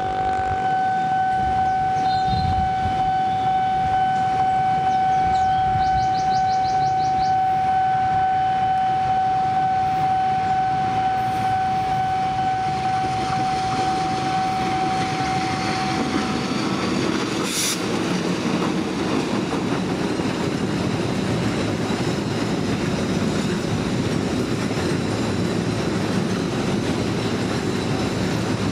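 Container freight train hauled by a CC 206 diesel-electric locomotive passing close by. A steady high tone sounds for about the first sixteen seconds, then the loaded container wagons roll past with a steady rumble of wheels on the rails.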